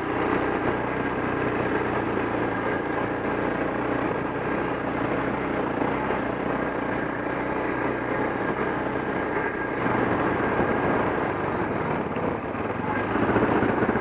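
KTM 640 Adventure's single-cylinder four-stroke engine running steadily under way at riding speed, with a slight change in its note about ten seconds in.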